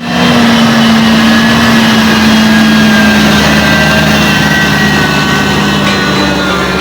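Diesel engine of a John Deere 7J-series tractor running steadily.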